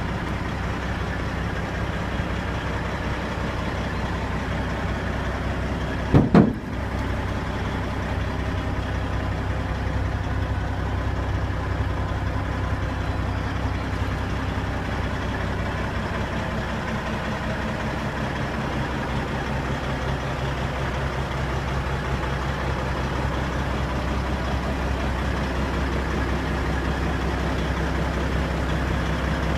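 Caterpillar 3406E diesel engine of a 1995 Kenworth T800 dump truck idling steadily. About six seconds in, a brief loud burst cuts across the idle.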